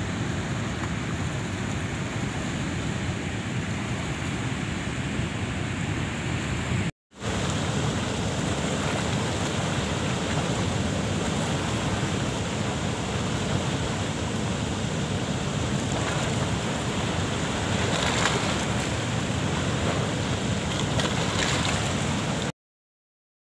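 Water rushing through the open sluice gates of a river weir and churning over the rocks below: a steady noise of white water. It drops out for a moment about seven seconds in and cuts off just before the end.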